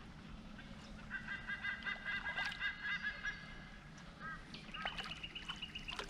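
A bird calling: a rapid run of short, repeated honking notes, then a single held higher note near the end.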